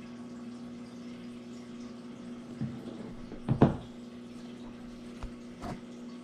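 A few soft knocks and bumps from handling the mixing cup and plastic mold box while silicone is being poured, the loudest a double knock about halfway through, over a steady low hum.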